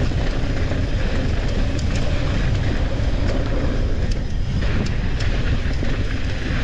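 Mountain bike descending a rough dirt trail at speed: a steady heavy rumble of wind buffeting the microphone and tyres running over dirt and rock, with scattered clicks and rattles from the bike.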